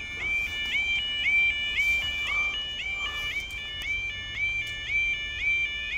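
Railway level crossing audible warning (yodel alarm) sounding with the barriers closed, a repeating rising two-tone electronic call about twice a second that warns that a train is due.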